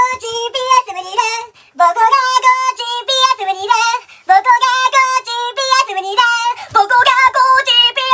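A very high-pitched voice singing short, choppy notes that bend up and down, with no accompaniment. It breaks off briefly about a second and a half in and again about four seconds in.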